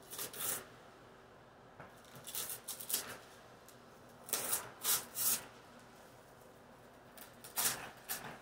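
Wrapping paper and a small cardboard toy box rustling and scraping in a toddler's hands, in several short bursts.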